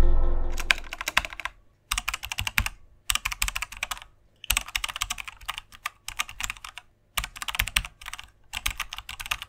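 Computer keyboard typing in bursts of quick keystrokes, each burst about a second long with short pauses between. At the start a deep boom fades away under the first keystrokes.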